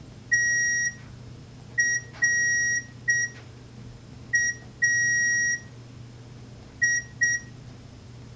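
Morse code sounded by the Morse CT trainer app on a tablet: short and long beeps at one steady pitch, keyed out slowly with uneven gaps between them. A faint steady low hum runs underneath.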